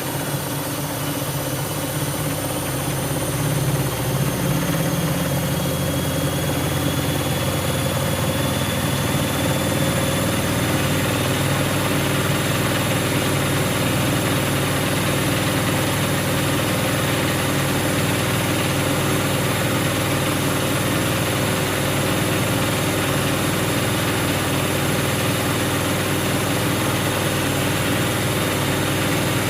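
Siemens Siwamat iQ washing machine running, its motor whine and drum hum rising in pitch as the drum speeds up over the first ten seconds or so, then holding at a steady speed.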